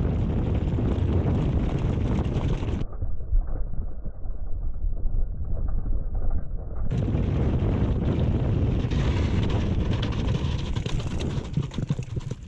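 Wind buffeting the microphone of a camera on a moving mountain bike, over the rumble of the ride on a forest trail. The sound goes muffled for about four seconds in the middle, then returns as before.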